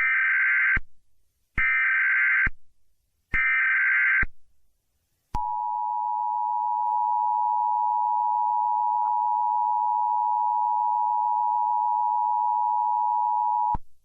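Emergency Alert System SAME header: three short bursts of digital data tones, each under a second, with brief gaps between them. Then the EAS two-tone attention signal sounds steadily for about eight seconds and cuts off abruptly, marking the start of an emergency alert message.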